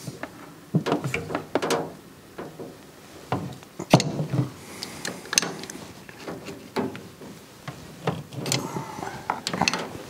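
Two steel crescent wrenches clinking and knocking against a brass drain-valve fitting and each other as the fitting is worked loose from its pipe. The sounds are irregular sharp metal clicks, some with a short ring.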